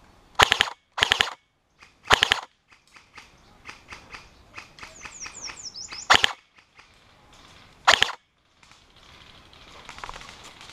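Airsoft electric rifle firing five short full-auto bursts of rapid snapping shots, with fainter scattered clicks from other airsoft fire in between.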